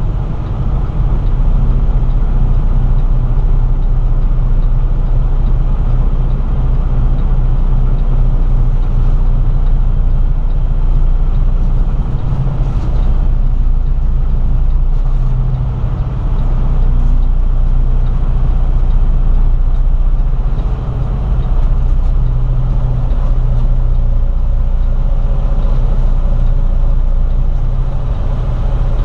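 Semi-truck's diesel engine running with a steady low drone while the truck moves slowly, heard from inside the cab.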